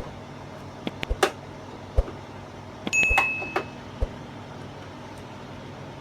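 Scattered clicks and knocks of TV parts and tools being handled during a teardown, with a short ringing metallic clink about three seconds in, over a steady low hum.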